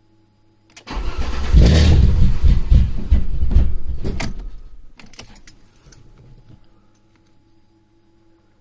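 Alfa Romeo 156 2.5 V6 engine starting about a second in, running roughly for a few seconds, then dying away and stalling, followed by a few clicks. The start-and-stall fault was traced to intake runners not tightened to the cylinder head.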